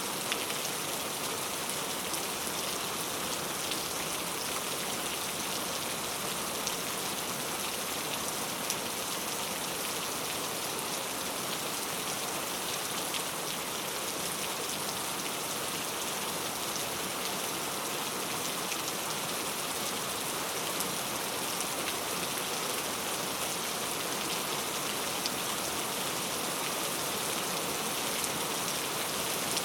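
Steady rain falling on a surface, an even patter with scattered individual drops.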